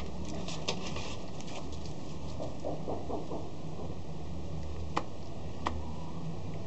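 Scattered light clicks and scuffling of puppies playing and mouthing at a broom on a concrete floor, with two sharper clicks near the end, over a steady low hum.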